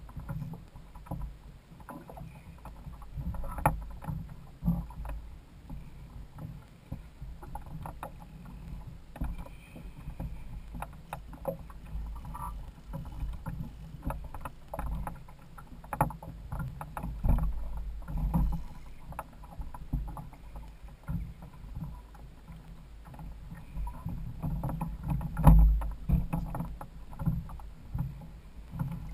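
Water lapping and knocking against the hull of a Hobie Adventure Island sail kayak, heard as an irregular low rumble with scattered sharp knocks. The loudest knocks come about 16 and 25 seconds in.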